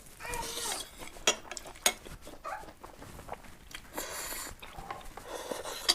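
Eating utensils clinking sharply against a bowl a few times, amid noisy eating sounds from a meal of spicy ramen noodles.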